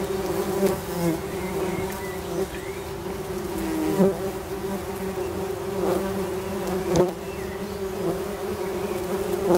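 Tree bumblebee (Bombus hypnorum) workers buzzing in an opened nest box, a steady drone of several bees at once as the disturbed workers react aggressively. A few brief knocks, the sharpest about four and seven seconds in.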